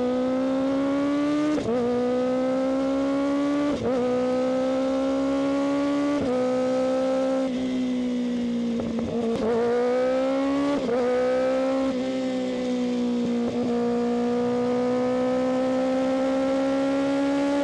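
Kawasaki ZX-6R's inline-four engine pulling through the gears: its note climbs steadily, dips briefly at each upshift about every two seconds, then settles into a steady, slowly rising cruise near the end.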